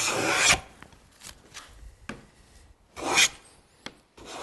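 Wooden No.12 round moulding plane cutting shavings along a cove in a wooden board, a rasping hiss of the iron. One full pass ends about half a second in, a shorter stroke comes about three seconds in, and the next pass starts near the end.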